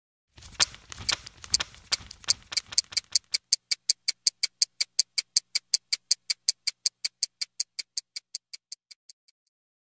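Ticking like a watch or clock mechanism. A few louder clicks sound over a low rumble in the first three seconds, then a steady run of sharp ticks, about five a second, fades out near the end.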